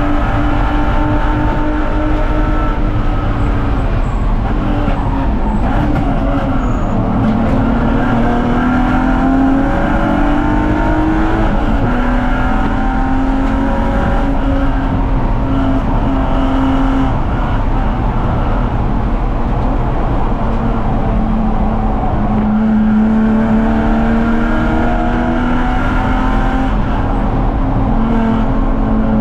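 BMW 330ci race car's 3.0-litre straight-six at racing speed, its note climbing under full throttle and dropping at each shift or braking point, several times over. Heavy wind and tyre rumble run underneath.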